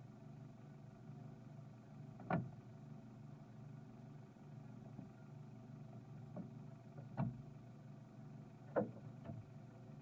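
Car engine idling low and steady, with a few short sharp knocks: one about two seconds in and two more near the end.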